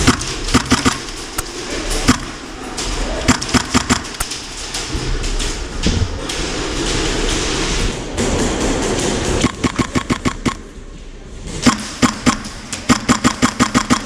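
HPA-powered MP7 airsoft replica firing in quick bursts of about ten shots a second, several times, over the steady background noise of an indoor play hall.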